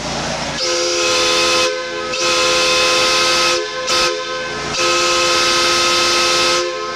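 Live-steam model steam locomotive's chime whistle blowing three long blasts, each a chord of several steady tones, with a short toot between the second and third. Steam hisses throughout.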